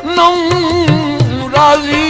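Punjabi folk song: a long wavering held melodic note over tabla drumming.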